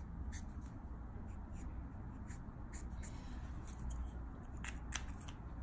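Copic marker nib brushing over Strathmore Bristol paper in short, repeated strokes, then a single sharp click near the end.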